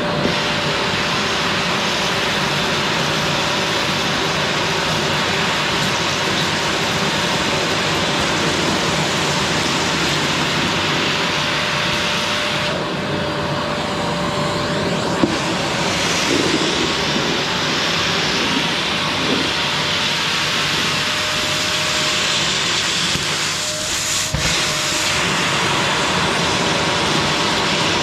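Qilive vacuum cleaner running steadily while vacuuming a sofa, a loud even rush of suction. Its high hiss dips and changes briefly a few times.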